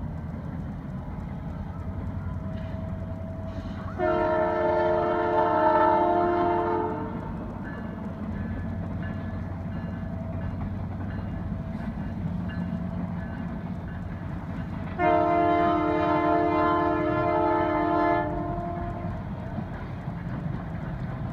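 Canadian Pacific Holiday Train passing, a steady low rumble of the rolling train, with two long blasts of the locomotive's multi-note air horn, each about three seconds, roughly ten seconds apart.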